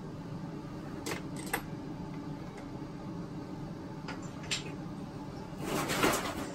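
Metal sockets clinking in a toolbox drawer as they are rummaged through: a few sharp clinks, then a longer, louder rattle near the end. A steady low hum runs underneath.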